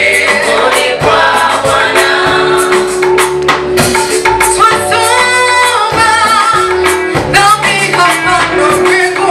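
Vocal group singing a Swahili gospel song in harmony over instrumental backing with a steady beat.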